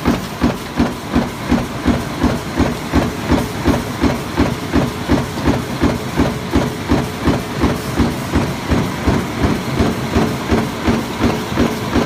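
A stamping press running continuously, its die punching round perforated blanks out of steel strip at about three strokes a second. The strokes are evenly spaced and keep the same beat throughout.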